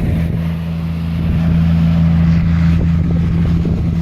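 A semi truck drives past without sounding its horn: steady low engine drone and road noise, growing a little louder about a second in.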